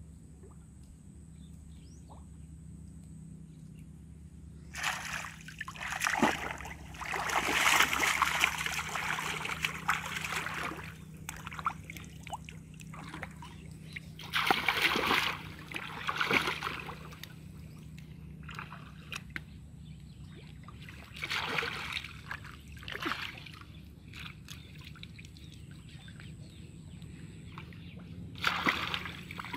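Shallow water splashing and sloshing in several irregular bursts as a person wades knee-deep and works with her hands in a muddy pond; the longest burst comes a few seconds in.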